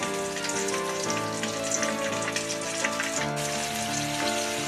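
Flour-coated chicken pieces (karaage) deep-frying in a wok of hot oil: a steady crackling sizzle like rain on a surface. Background music with changing notes plays along with it.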